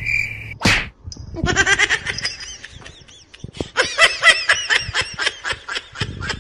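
A short whoosh under a second in, then high-pitched giggling laughter in fast short bursts, in two runs with a pause of about a second between them.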